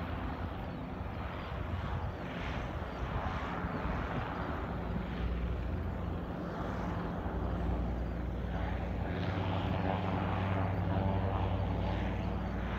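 Goodyear Blimp's Zeppelin semi-rigid airship taking off, its propeller engines running steadily and growing a little louder as it climbs away.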